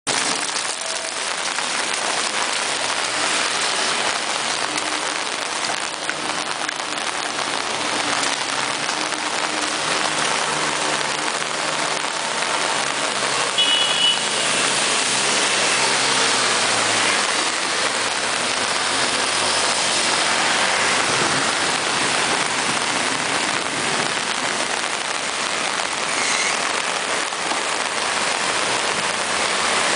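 Heavy rain falls in a steady hiss over a flooded street. Under it, car engines run as vehicles drive through the flood water, one engine's pitch dropping about seventeen seconds in. There is a brief high beep about fourteen seconds in.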